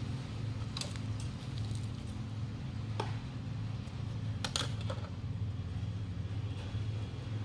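A few light clicks and taps, a small cluster about four and a half seconds in, as a truck inner-tube valve with its metal stem and rubber base is handled, over a steady low hum.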